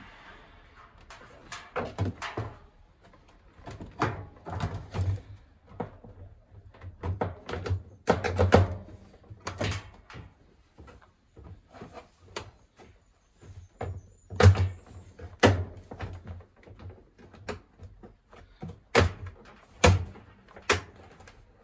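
Irregular knocks, clicks and clunks in clusters, from the metal cabinet and plastic parts of a tumble dryer being handled and pushed back into place during reassembly.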